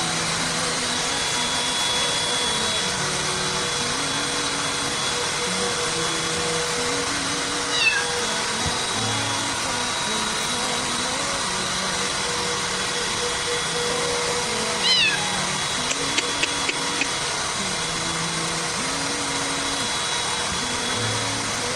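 A cat meows twice, short falling calls about 8 and 15 seconds in, over a steady whooshing noise and soft background music with a slow low melody. A few light clicks follow the second meow.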